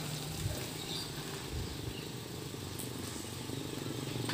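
Small pickup truck's engine running at low speed as it pulls in and stops, a low steady hum under a faint steady high insect chirr.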